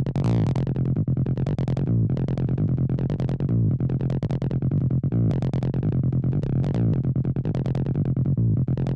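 Electronic acid music: a fast, repeating synthesizer bassline whose tone brightens and darkens every second or two as its filter sweeps open and closed.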